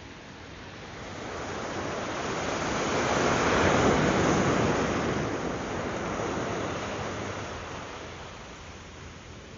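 Surf breaking on a sandy beach: one wave's wash swells to a peak about four seconds in, then fades away.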